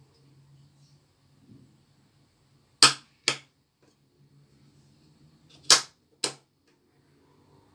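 Small brass clasp latches on a wooden box clicked by hand. Two sharp clicks come from the left latch about three seconds in, then two more from the right latch near six seconds.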